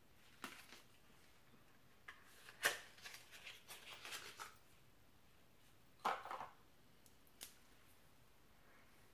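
Small makeup packaging being handled and opened: a click, then a stretch of crackly rustling and clicks, another short rustle about six seconds in, and one last click.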